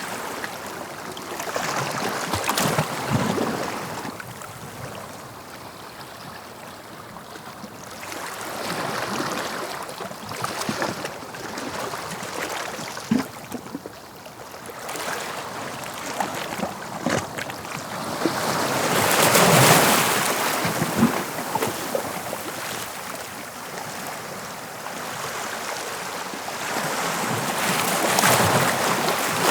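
Sea waves breaking on the shore, swelling and fading about every eight to ten seconds, with scattered short splashes.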